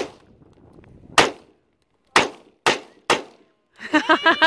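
AR-15 semi-automatic rifle fired five times in quick, uneven succession: sharp single cracks about a second apart at first, then closer together, roughly half a second apart.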